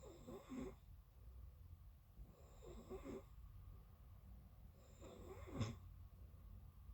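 A sleeping person snoring faintly, three snores about two and a half seconds apart.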